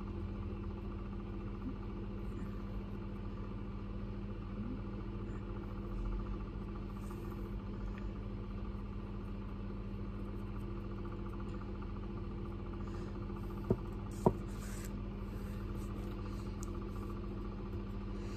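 Steady low hum with a few faint fixed whining tones, like a fan or appliance running in the room. Two short sharp clicks, about half a second apart, come roughly three-quarters of the way through.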